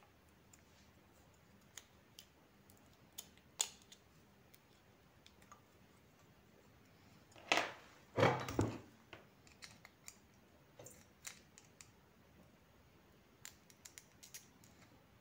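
Scattered small clicks and taps of hand tools and a small circuit board being handled while an IC is being desoldered from it, with two louder handling noises about seven and a half and eight and a half seconds in.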